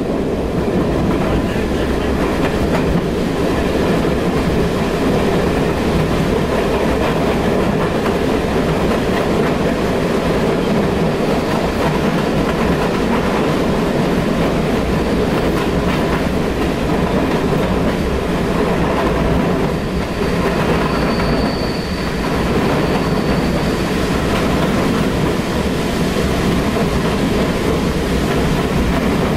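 Steady rumble and clatter of a vintage wooden-bodied passenger carriage running along the rails, heard from inside the compartment. A faint high squeal comes in briefly about two-thirds of the way through.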